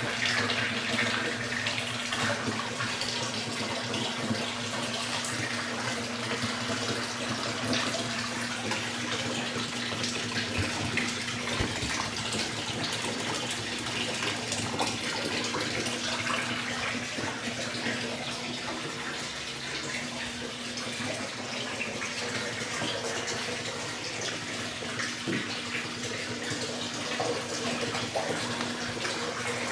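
Electrolux LTE12 top-loading washing machine with water running steadily into its tub, filling, over a steady low hum.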